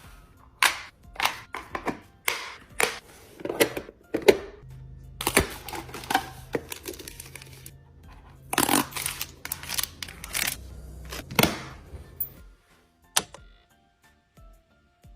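Items being handled while a mini fridge is restocked: a quick series of clicks, knocks and clatters as containers are set down and pushed into place, stopping about twelve seconds in.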